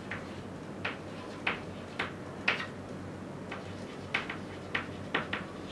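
Chalk writing on a blackboard: about a dozen short, irregular taps and strokes of the chalk against the board.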